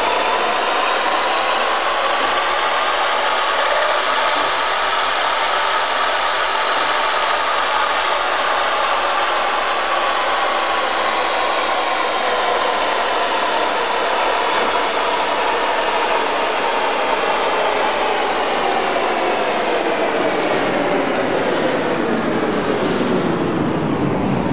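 Metal lathe cutting steel under coolant, parting the workpiece. It makes a continuous whine of several tones that rises slowly in pitch, then falls, and drops quickly near the end.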